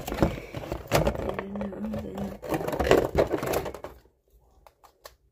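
Plastic toy sonic screwdriver being handled, its parts clicking, rattling and scraping together, with a short low hum about a second and a half in. The clatter stops about four seconds in, leaving a few faint clicks.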